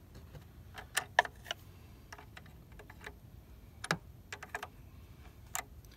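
A few irregular light metallic clicks and taps as a 10 mm closed-end wrench works the nut on a car battery terminal clamp to disconnect the battery. There is a small cluster about a second in and single clicks later on.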